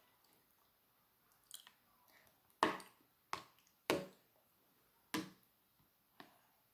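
Stainless steel chopsticks clicking against each other and against a plastic plate: about six sharp clicks spread over several seconds, the loudest about two and a half and four seconds in.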